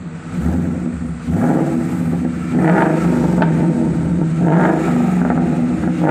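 Ford Mustang's engine running through an aftermarket Ross muffler, revved in several blips over a steady rumbling idle; the exhaust note is loud.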